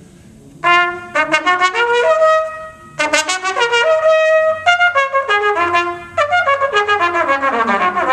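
Solo trumpet playing a quick etude passage. It comes in about half a second in, in short phrases of fast notes, several of them falling runs, broken by brief pauses for breath.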